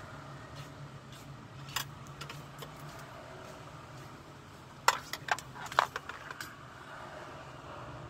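Light metallic clicks and rattles of a car door lock actuator and its linkage rods being handled against the inner door panel: one click near two seconds in, then a quick cluster of several about five to six and a half seconds in. A steady low hum runs underneath.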